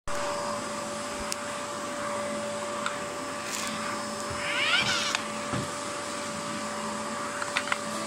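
A steady hum with one constant tone under it. About halfway through comes a short wavering cry, its pitch going up and down, and a few light clicks follow near the end.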